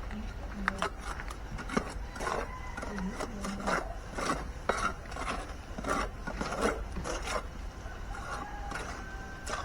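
Irregular scraping and knocking of hand tools at work, a rough stroke every half second or so.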